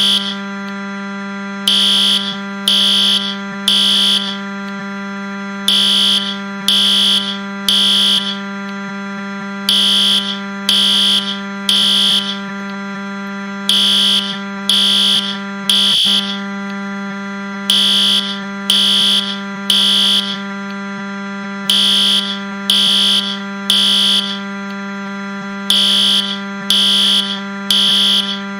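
Fire alarm sounding in the temporal-three pattern: three loud, high-pitched beeps about a second apart, the group repeating every four seconds. Under it runs a steady low buzzing drone, the Wii crash sound pitched down.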